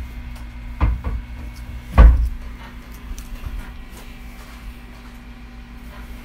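Two dull thumps about a second apart, the second louder, over a steady low hum that carries on alone afterwards.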